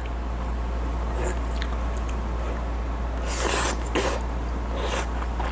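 A person slurping and eating a forkful of creamy pasta noodles, with a loud slurp about three and a half seconds in and a shorter one near the end. A few light clicks come earlier, over a steady low hum.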